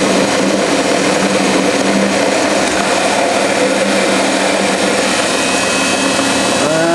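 Metal lathe running with its auto feed engaged while a carbide-insert turning tool takes a cut on the workpiece. The sound is a steady mechanical running noise with a constant pitch.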